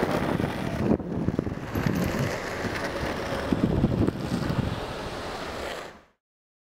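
Wind buffeting the microphone over the rumble of longboard wheels rolling on asphalt, with a few light knocks. It cuts off abruptly about six seconds in.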